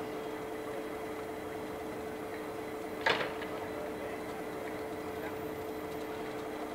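A single sharp metallic clank about three seconds in, from a lower-quadrant railway semaphore signal arm dropping back to the horizontal danger position, over a steady low hum.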